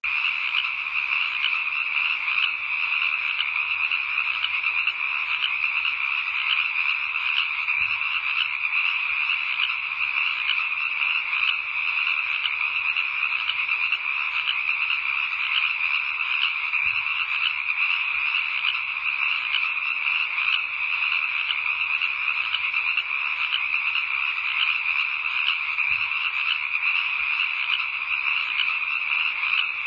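A dense chorus of many frogs calling continuously at night, a steady unbroken din of rapid calls.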